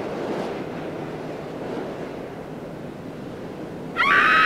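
Intro sound effects: a steady rushing, wind-like noise, then about four seconds in a sudden loud, high-pitched scream.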